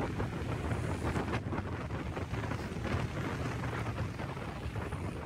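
Wind buffeting the microphone over a steady low rumble of road traffic and a moving vehicle.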